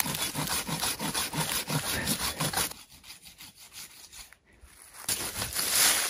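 Hand pruning saw cutting through a thin dry branch in quick back-and-forth strokes, about two to three a second. The sawing stops for about two seconds in the middle and starts again near the end.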